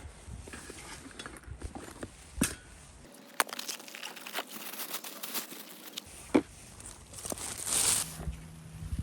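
Scattered clicks, knocks and rustling of gear being handled, with a longer rustle near the end.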